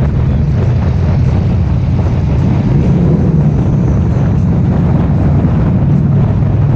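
Harley-Davidson touring motorcycle's V-twin engine running steadily at cruising speed, a continuous low drone mixed with wind rushing over the bike-mounted microphone, inside a road tunnel.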